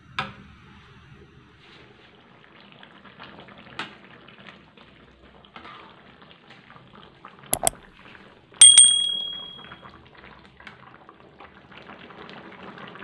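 Coconut-milk curry simmering in a metal wok, a faint steady bubbling, with a metal ladle stirring through it. The ladle knocks the wok twice, the second time, about two-thirds through, a loud clang that rings briefly.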